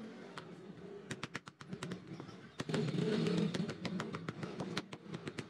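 A run of sharp, irregular clicks and taps as leather slippers are handled and pressed down on a stone block, with a low background rumble rising in the middle.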